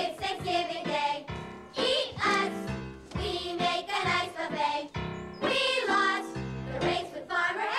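A chorus of children's voices singing a cheerful stage song over an instrumental accompaniment, with a steady beat in the low notes.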